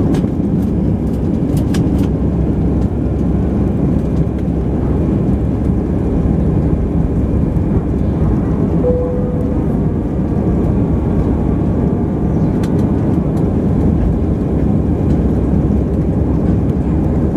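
Steady engine and airflow noise inside the cabin of an Airbus A319-111 climbing out after take-off, its CFM56 turbofans running at climb power.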